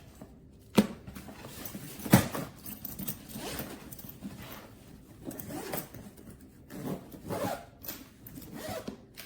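Zipper of a hardside carry-on suitcase being drawn open in several rasping pulls, after two sharp clicks about one and two seconds in.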